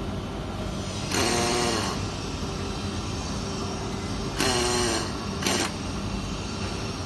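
A hand-held drill runs in short spells, drilling into a steel wheel block housing. It is a hissing whine whose pitch bends under load, with a burst about a second in, another about four and a half seconds in, and a brief one just after. A steady machine hum runs underneath.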